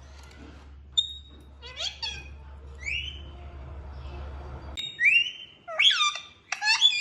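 Pet parrot calling: short, pitched calls and whistles that slide up and down in pitch, sparse at first and coming thick and loud in the last two seconds. A low hum underneath stops about five seconds in.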